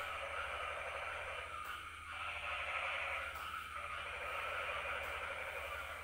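Night-time chorus of calling animals, a dense, crackling din that swells and fades in waves about every second and a half to two seconds.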